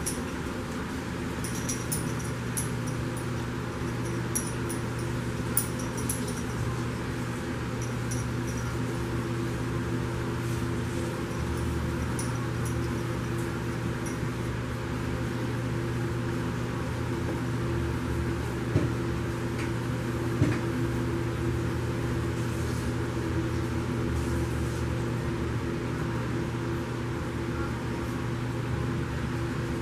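A steady low mechanical hum, like a running fan, fills the room. Over it come faint light clicks and rattles in the first several seconds and a few soft knocks later, from puppies playing with toys on a blanket.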